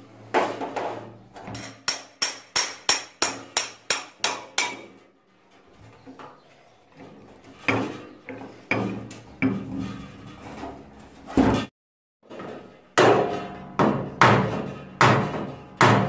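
Metal hammer strikes on an old fan motor's metal housing as it is knocked apart. First comes a quick run of about a dozen sharp knocks, roughly three a second; after a short pause come slower, irregular knocks, then a brief dropout and a final group of strikes.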